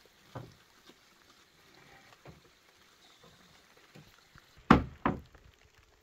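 Sharp knocks: a faint one just after the start, then two loud ones about half a second apart near the end.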